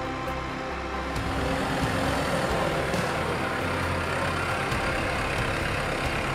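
New Holland farm tractor's diesel engine running as it tows a loaded hay wagon across grass, getting louder about a second in.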